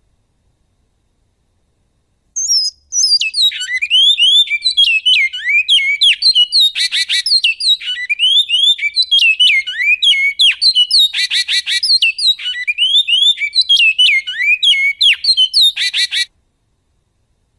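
Male bicudo (great-billed seed-finch) singing the 'canto goiano' song: one long phrase of quick, falling whistled notes, broken three times by short harsh, buzzy notes. It starts about two seconds in and stops shortly before the end.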